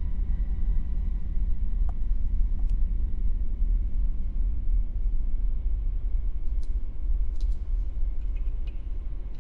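Steady low rumble, with a few faint clicks scattered through it.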